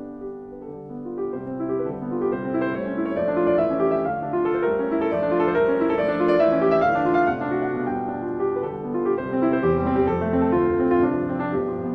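Piano music, soft at first and growing fuller a second or two in, with a deep bass note coming in near the end.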